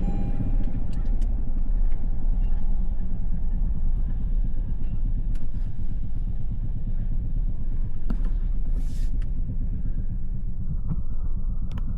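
2022 Toyota Tundra's twin-turbo V6 running steadily, with the engine knock audible in its low rumble, the sign of internal engine damage that led to an engine replacement.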